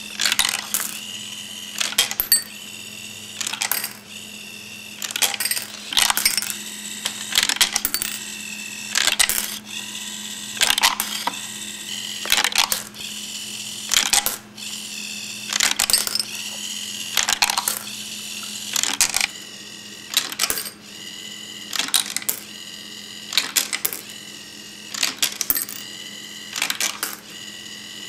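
Homemade Skittles sorting machine cycling: its servos whir and the candies click and rattle through the turnstile and chute. The clatter comes in a cluster about every two seconds, over a steady hum.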